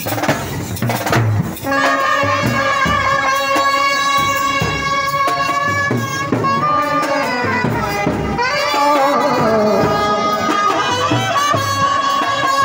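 Indian street brass band playing: trumpets carry a melody in unison over steady drumming. The horns come in with long held notes about two seconds in, and there is a run of sliding notes a little past the middle.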